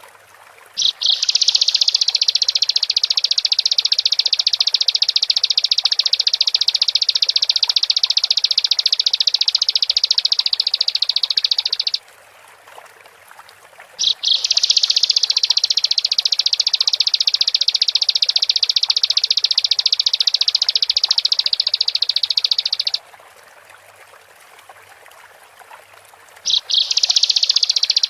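Bar-winged prinia (ciblek) singing its long, very rapid, high-pitched trill in three bouts. The first runs about eleven seconds from about a second in, the second about nine seconds after a two-second pause, and the third starts near the end.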